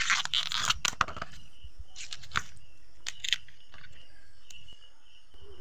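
Banana flower being peeled by hand: the bracts and florets crackle and snap in a few short, crisp spells, the first and longest right at the start.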